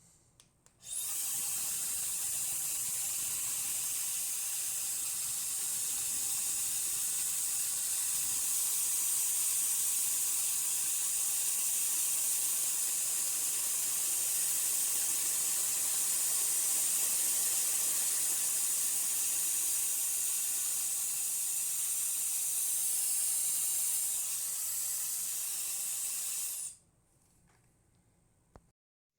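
Slopehill ionic high-speed hair dryer blowing with a steady, high airy hiss, switched on about a second in and cut off abruptly near the end.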